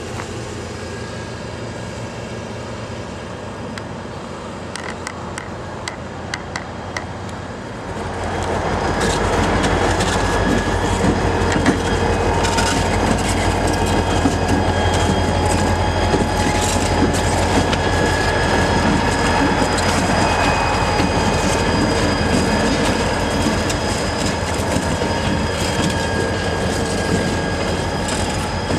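Diesel locomotive passing at close range: a steady low engine drone with a high, steady squeal of wheels on the rails. It grows loud about eight seconds in and stays loud. Before that there is a quieter rumble with a few light clicks.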